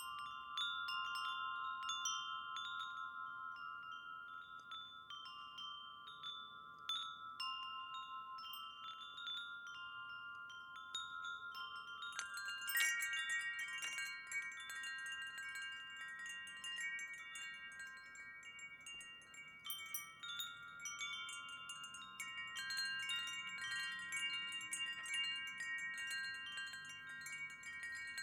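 Wind chime ringing: the chimes are struck again and again and their tones keep sounding. About halfway, a harder strike sets off many more and higher tones at once.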